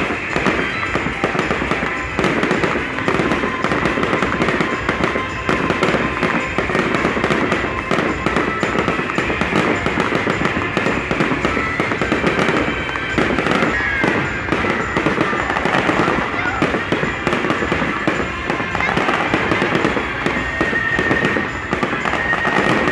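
Fireworks display: a dense, continuous run of crackles and bangs from fountains and aerial shells.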